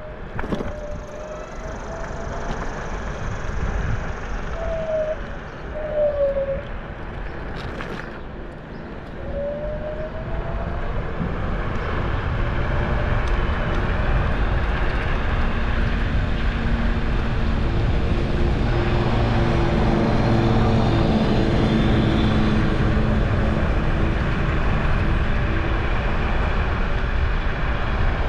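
Low vehicle rumble that grows louder about ten seconds in and then holds steady, with a low hum of several steady tones in the second half.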